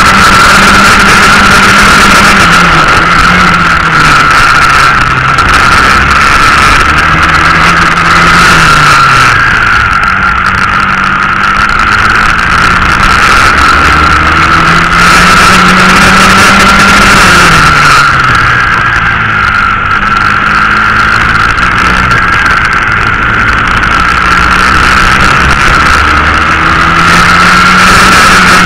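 Swissauto 250 cc four-stroke kart engine at racing speed, heard from on board the kart: the revs fall away under braking and climb again on acceleration several times as it laps the circuit. A steady high whine sits over the engine note.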